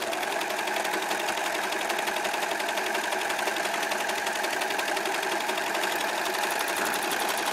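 Serger (overlock sewing machine) running at a steady speed, stitching along a fabric edge with a fast, even mechanical whir.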